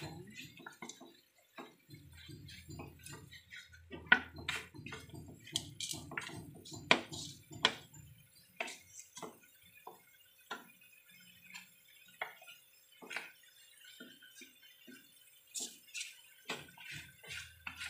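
Wooden spatula stirring pieces of pork in a metal frying pan, giving irregular sharp clicks and taps as it knocks and scrapes against the pan while the pork browns.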